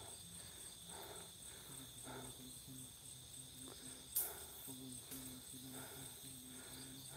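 Crickets and other night insects trilling steadily and faintly, under a faint regular low pulsing. A single sharp click comes about four seconds in.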